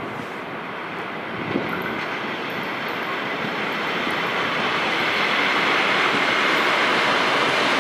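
ED2T electric multiple unit train approaching and running past, its wheel and running noise growing steadily louder, with one short knock about a second and a half in.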